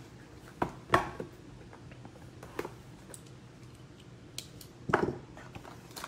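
Light taps and knocks of a cardboard trading-card box being handled on a table and its lid pulled open. Two louder knocks come about a second in and near the end.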